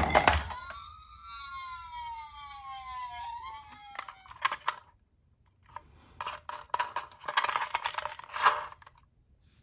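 A two-tone siren cuts off just after the start, followed by a siren tone sliding slowly down in pitch for about three seconds. After a short gap, small plastic toy vehicles clatter and click for about three seconds.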